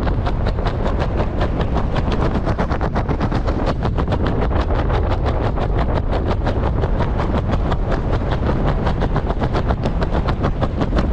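Wind rushing past the microphone under an open reserve parachute, with a rapid, even fluttering of about seven pulses a second.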